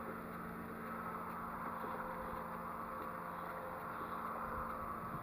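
Boat's outboard motor idling, a steady low hum.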